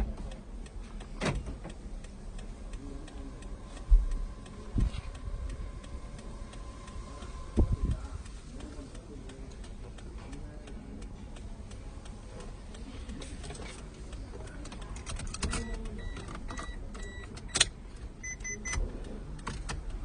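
Car engine idling steadily after an app remote start, under scattered knocks and thumps from handling in the car. Several short electronic beeps come near the end.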